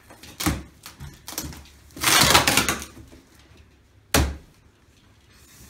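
A large cardboard box being cut open with a utility knife and its flaps pulled open: scattered clicks and scrapes of the knife and cardboard, a longer rasp of cardboard about two seconds in, and one sharp knock about four seconds in.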